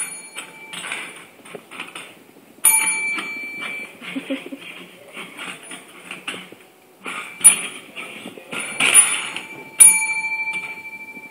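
A Havanese puppy nosing and pawing a small metal service bell on a tile floor while going after a treat hidden under it. The bell dings about four times, each ring fading slowly, with the bell rattling and scraping against the tile in between.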